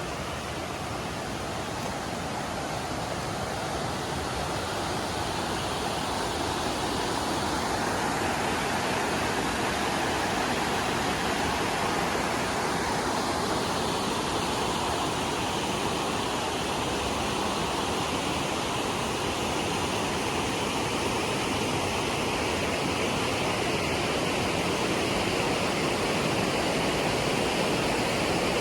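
Steady rush of a mountain waterfall and stream, growing gradually louder over the first several seconds and then holding.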